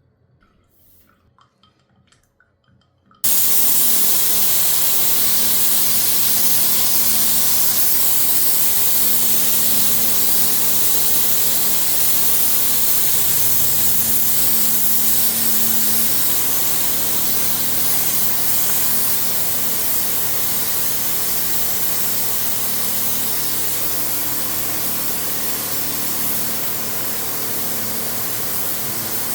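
Air spray gun hissing steadily, switching on abruptly about three seconds in, with a low steady hum underneath.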